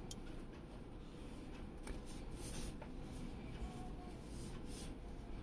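Faint rustling and light scraping of fingers handling a bare motherboard, in several short, soft brushes over a low steady background hum.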